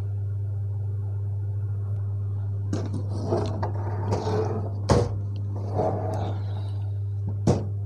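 Handling noise from a metal amplifier case being turned round on the floor: rubbing and shifting with two sharp knocks, about five seconds in and again near the end, over a steady low hum.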